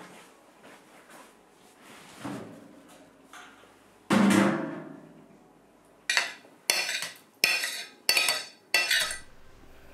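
Plate of food being scraped off into a kitchen rubbish bin: five short, sharp scrapes about two-thirds of a second apart. They follow a louder thud about four seconds in.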